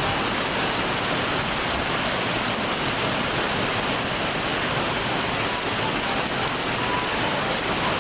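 Heavy downpour: dense, steady torrential rain pouring down.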